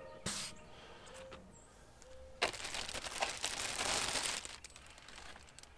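Plastic packaging crinkling as it is handled: a short crackle near the start, then a longer, louder stretch of crinkling of about two seconds in the middle.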